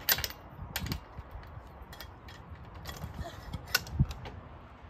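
A few sharp metallic clicks and knocks from a lug wrench being worked on a car wheel's lug nuts as they are loosened, loudest near the start and about four seconds in.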